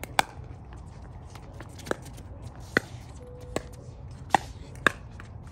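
A pickleball rally: sharp, hollow pops of paddles striking the plastic ball, and the ball bouncing on the hard court, six pops in about five seconds at uneven spacing.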